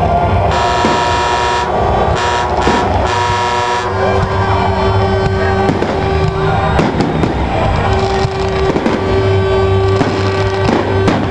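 Aerial fireworks going off, a scatter of sharp bangs and crackles from bursting shells, over loud music with sustained chords and a held tone.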